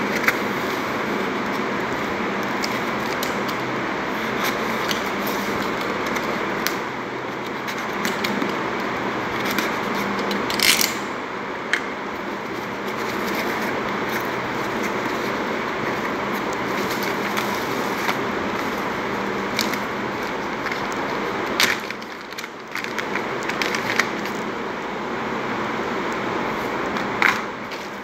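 Steady background hiss, with scattered clicks, scrapes and crackles of a cardboard parcel being slit open with a box cutter and its bubble wrap handled.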